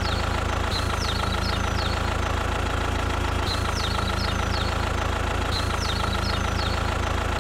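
A small engine running steadily at idle, an even low hum with a fine rapid pulse that does not change. Short high chirps, like small birds, come in little groups every second or two over it.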